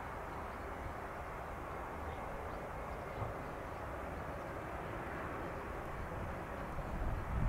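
Airbus A320 jet engines running at low power as the airliner taxis, a steady distant rushing hum with a low rumble that grows louder near the end.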